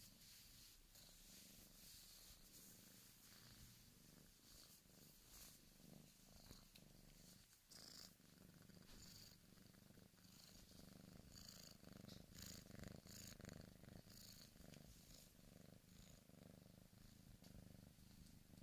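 Bengal kitten purring faintly and steadily, very close to the microphone as it is stroked, with soft crackling rustles of its fur brushing the microphone.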